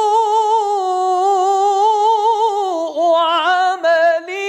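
Male Quran reciter chanting in the melodic mujawwad style, drawing out the elongated vowel of the word 'sū'' (سوء) as one long note with a wavering, ornamented pitch. About three seconds in the note dips and breaks into shorter melodic turns.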